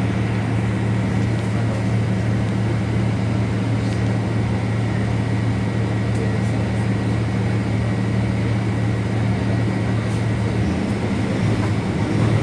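Mercedes-Benz 1724L bus running steadily, its drivetrain giving off a loud, even drone from the differential, which the owner calls very loud. The low tone shifts slightly near the end.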